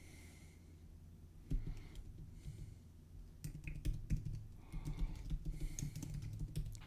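Typing on a computer keyboard: a scatter of faint, irregular key clicks beginning about a second and a half in.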